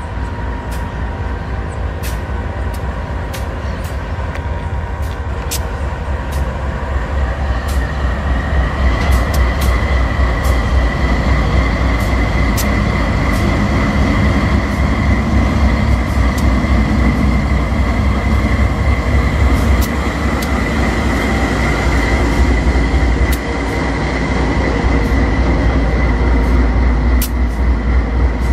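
A pair of GE AC44i diesel locomotives hauling a double-stack container train pass close by, their engines making a heavy steady rumble, with steel wheels clicking over the rails. It grows louder as the lead unit comes alongside, and a steady high whine joins about eight seconds in. There is a brief dip in level as the gap between the two locomotives goes by.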